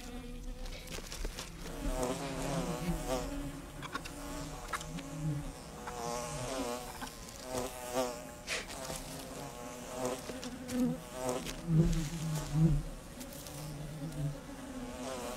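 African honeybees buzzing as they fly around and over their broken-open comb, several at once, the pitch wavering as single bees pass close. Defensive bees stinging at a raiding honey badger, with scattered short clicks underneath.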